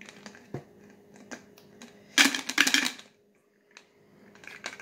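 Small objects rattling inside a plastic water bottle as it is tipped upside down and shaken to get them out through the narrow neck: light clicks, then a dense burst of clattering a little under a second long, about two seconds in.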